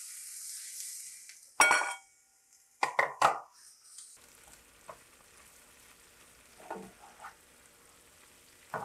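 Shrimp shells sizzling in hot grapeseed oil in a stainless steel skillet, with the spatula knocking and scraping against the pan in two bursts of clinks in the first few seconds. After about four seconds the sizzle drops to a faint crackle with light taps as the shells are stirred.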